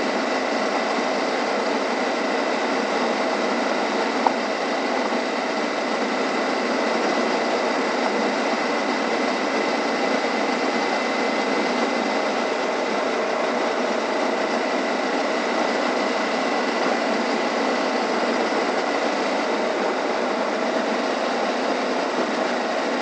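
Suzuki V-Strom 650's V-twin engine running steadily at cruising speed on a gravel road, mixed with a steady rush of wind and tyre noise and a thin steady whine. One short tick about four seconds in.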